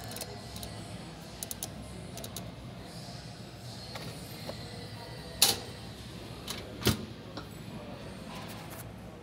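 Light clicks and two sharp knocks, the first about five and a half seconds in and the louder, the second about a second and a half later, from a display washing machine's lid and controls being handled. A steady low hum runs underneath.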